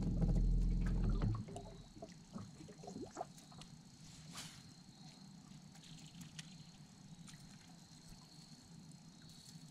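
Water lapping against a boat's hull, with a low hum that is loudest for the first second and a half, a few small clicks, and a faint steady high whine underneath.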